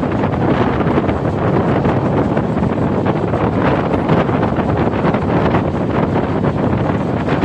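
Steady wind buffeting the microphone held out of a moving train, over the train's running noise.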